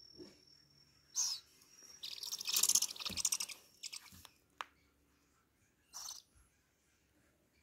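Owl chicks hissing: a short rasp about a second in, a long rasping hiss lasting over a second from about two seconds, and another short rasp near six seconds.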